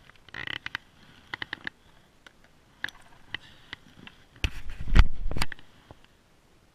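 Handling noises as a fish is gripped and held up: light clicks and ticks of a plastic fish lip gripper and pliers, then a second of louder thumps and rustling about four and a half seconds in.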